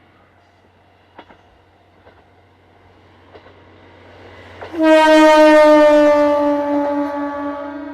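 Diesel railcar approaching with a rising rumble, then sounding its horn in one long blast about five seconds in, held for about three seconds with its pitch sliding slightly down.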